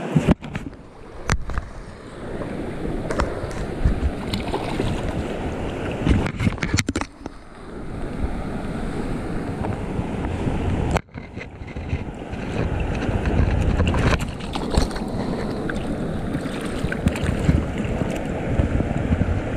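Fast river water rushing over rocks, with wind buffeting the microphone in a low rumble. Scattered knocks from handling, and the sound drops out briefly a few times.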